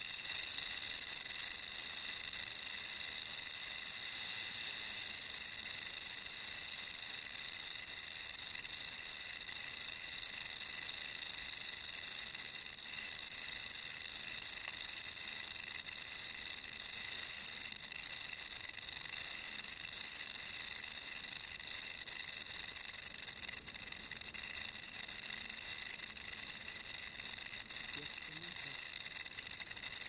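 Rattlesnake shaking its tail rattle: a continuous high-pitched buzz that holds steady without a break.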